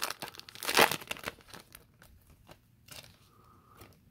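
Foil wrapper of an Upper Deck hockey card pack crinkling and tearing open, loudest in the first second and a half. Fainter rustles and small clicks follow as the cards are slid out of the pack.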